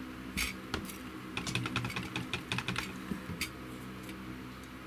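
A run of light, sharp clicks and taps, coming thick and fast in the middle, over a steady low hum.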